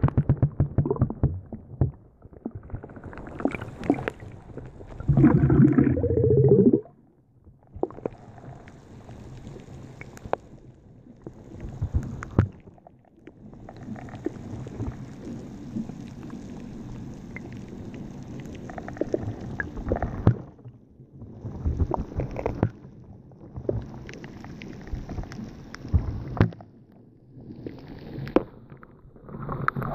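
Muffled underwater noise picked up by a camera held under the water: low rumbling and gurgling with many sharp clicks and knocks, coming in irregular stretches with short quiet gaps. There is a loud low rumbling burst about five seconds in.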